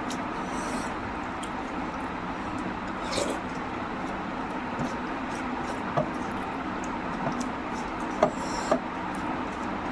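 Eating sounds: a person eating mutton curry and rice, with a few short sharp clicks, the loudest near the end, over a steady background hiss.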